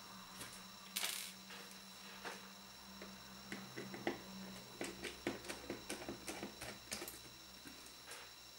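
Faint small clicks and ticks of a precision screwdriver working tiny Phillips screws out of a GPS unit's circuit board. There is a short scuff about a second in, then a run of quick little ticks in the middle of the stretch.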